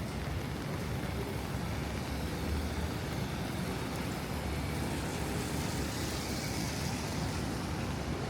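Traffic on a rain-wet city street: a steady wash of road noise, with a vehicle's tyres hissing past about five to seven seconds in.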